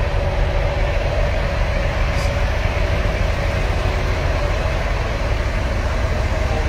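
Idling coach bus engines close by: a steady low rumble with a constant hum above it.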